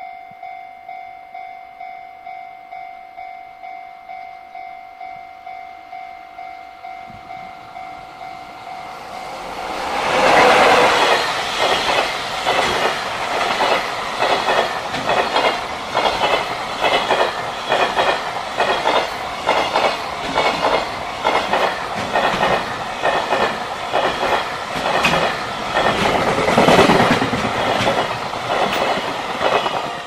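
Japanese level-crossing alarm ringing in a steady, repeated ding. About ten seconds in, a JR Freight container train passes close by and drowns it: first the locomotive, then a long run of container wagons with a fast, regular clickety-clack of wheels over the rail joints.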